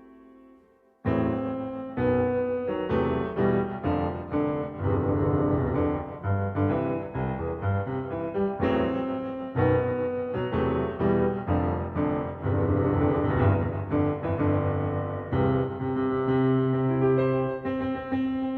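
Background music led by piano or electric piano, starting about a second in after a brief pause, with a steady flow of chords and notes.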